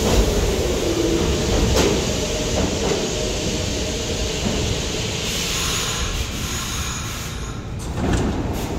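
Pullman-Standard R46 subway train running along the platform and slowing: a steady rumble of steel wheels on the rails with a whine that drops in pitch early on, easing off gradually, and a sharp click about two seconds in.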